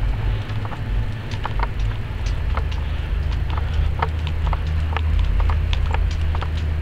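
Footsteps of a person and a dog walking on hard pavement: irregular sharp clicks and taps several times a second, over a steady low rumble.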